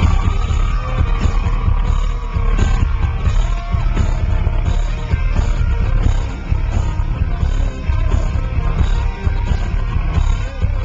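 A rock band playing loud live music, heavy in bass and drums, with a voice singing at times.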